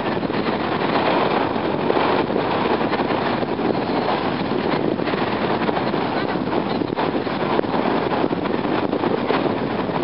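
Wind buffeting the microphone: a steady, rough rushing noise with no letup.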